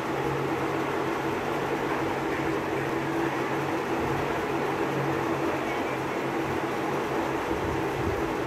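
Steady whir of an electric fan running: a constant low hum under an even airy hiss.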